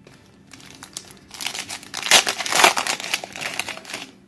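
Foil wrapper of a Panini Prestige football card pack crinkling and tearing as it is picked up and ripped open. It is loudest about two to three seconds in.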